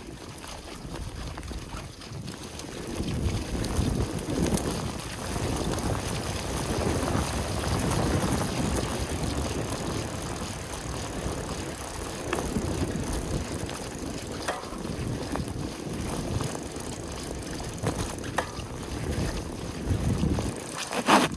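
Mountain bike being ridden: tyre rolling noise and rumble over the ground, with wind buffeting the microphone and a few sharp clicks or rattles along the way.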